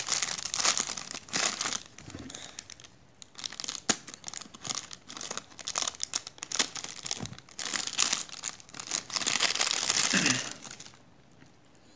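Plastic wrapper of a charging cable crinkling as it is handled, in several spells with pauses and a few sharp clicks, stopping about a second before the end.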